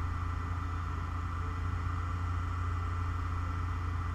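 Steady low mechanical hum in the background, unchanging throughout, with a fainter higher tone above it.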